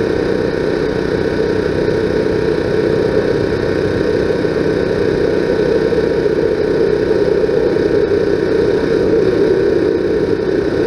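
Steady engine drone, loud and unchanging throughout.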